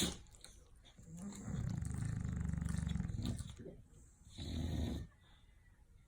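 English bulldog snoring: a long snore starting about a second in, then a shorter one past the four-second mark.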